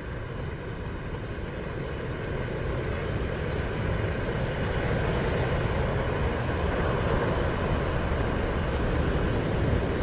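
Ocean surf washing onto a sandy beach. It is a steady wash of noise that grows louder over the first few seconds as waves break along the shore, then holds.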